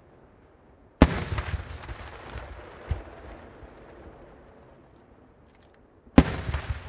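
Aerial firework shells bursting: a sharp loud bang about a second in that trails off in echo, a lighter bang near the three-second mark, and another loud bang near the end.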